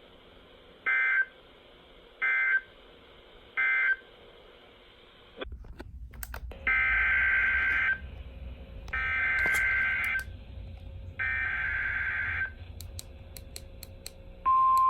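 Emergency Alert System data bursts from a weather radio: three short screechy two-tone bursts (the end-of-message code), then after a click three longer bursts (the SAME header of the next alert). A single steady alert tone starts near the end.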